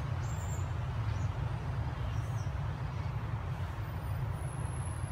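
Steady low rumble of outdoor background noise with a faint hiss above it, and a few faint high chirps.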